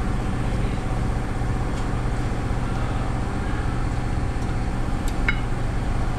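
Steady low mechanical hum at an even level, with a few faint light clicks.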